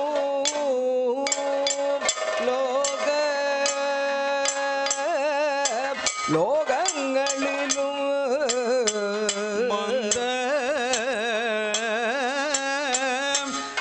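Kathakali music: a singer holds long, heavily ornamented notes with wide vibrato over a steady drone. Frequent sharp strokes from a barrel drum and small metal cymbals keep time throughout.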